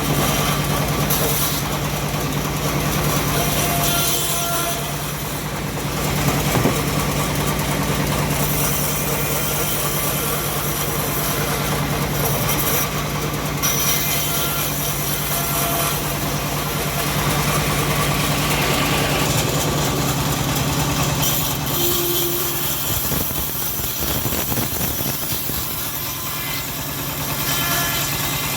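Homemade bandsaw mill running while it saws an old teak log: a steady machine hum under a broad hiss, with the hum easing about 22 seconds in.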